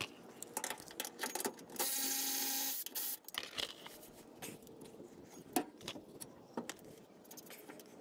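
A Milwaukee cordless ratchet runs for about a second near the middle, working a shock-mount bolt. Around it are scattered metallic clicks and rattles of the bolts, socket and shock being handled.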